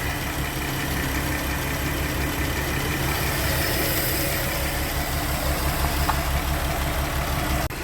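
Porsche Cayenne VR6 engine idling steadily after its PCV valve was replaced, with no whistle and no hunting in the revs.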